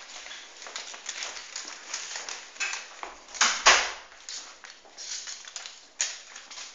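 Irregular scuffling and knocking on a hard floor as a kitten chases and bats a small ball, with a loud double knock about three and a half seconds in and a sharp knock at six seconds.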